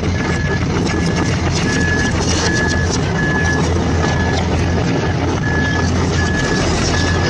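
A vehicle engine runs steadily while a reversing alarm beeps evenly, about three beeps every two seconds.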